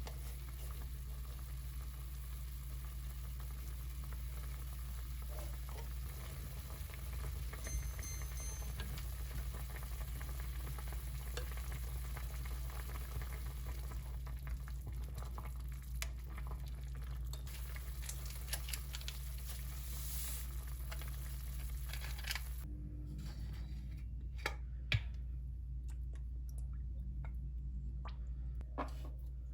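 Food sizzling as it fries in a pan, with a few utensil clicks, over a steady low hum. The sizzle stops about two-thirds of the way through, and a few sharp clicks and knocks follow.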